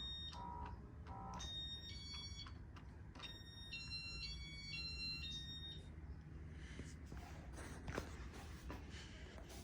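Casablanca ceiling fan's electronic control beeping a short series of tones that step up and down in pitch as the fan enters demo mode. Faint light clicks and a low hum follow.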